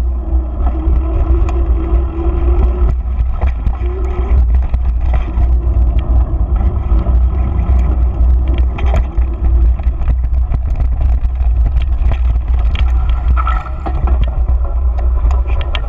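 Wind buffeting the microphone of a bike-mounted GoPro as a mountain bike with knobby tyres rolls along, with tyre rumble and repeated rattles and knocks as it runs over pavement joints and bumps. A steady hum sounds in the first few seconds.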